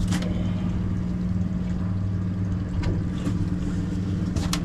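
Twin 300 hp outboard motors idling with a steady low hum. A few sharp clicks from handling on deck come at the start, around the middle and near the end.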